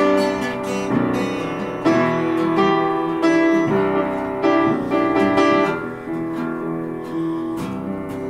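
Upright piano and acoustic guitar playing together, the piano leading with a new chord struck about every second over the guitar. The playing grows a little softer in the last couple of seconds.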